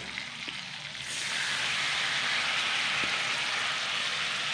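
Marinade poured into a hot pan of fried pork belly, sizzling. The sizzle swells about a second in and holds as a steady, loud hiss.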